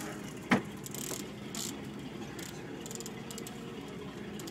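A boat's engine running steadily, with one sharp knock about half a second in.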